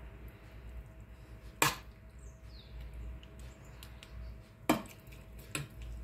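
A metal spoon knocking against a glass baking dish while spooning meat filling into eggplant halves: two sharp clinks about a second and a half and nearly five seconds in, and a lighter one shortly after, over a faint steady hum.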